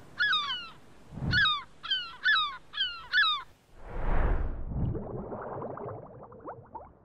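Seagulls calling, six short descending cries, then a whoosh and splash about four seconds in as something plunges into water, followed by underwater bubbling that fades out.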